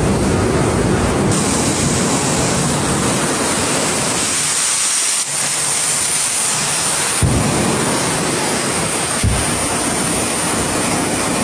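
Jet engine running, a loud steady roar with a high hiss on top. A few brief thumps break through about seven and nine seconds in.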